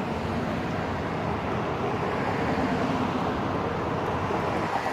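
Steady road traffic noise, an even rumble that swells slightly about halfway through.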